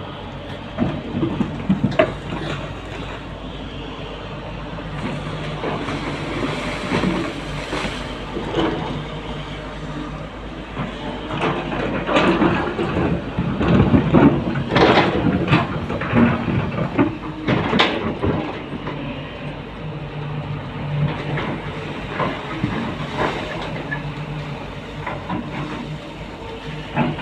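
Excavator's diesel engine running steadily under load, with repeated metallic knocks and clanks from the bucket and arm at work, busiest in the middle stretch.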